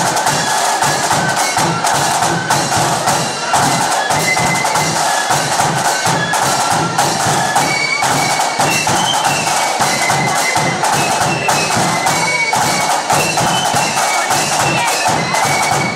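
Marching band playing: side drums beating a fast, busy rhythm with a bass drum, under a high-pitched melody.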